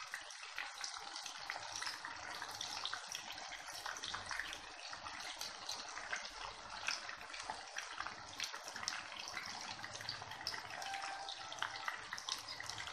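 Chicken pakoda pieces in a gram-flour and cornflour coating deep-frying in hot oil, a steady sizzle with many small crackles.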